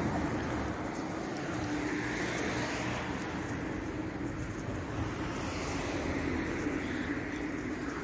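Street traffic noise: a steady hum of passing vehicles, swelling about two seconds in and again near six seconds.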